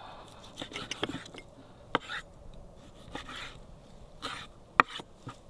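Knife cutting raw pork neck on a cutting board: irregular sharp knocks of the blade hitting the board between short rasping slicing sounds, the loudest knock near the end.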